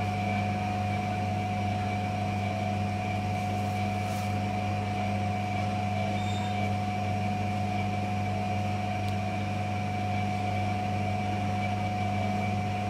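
Steady mechanical hum of professional kitchen equipment: a low drone with a few higher, constant tones over it, unchanging throughout.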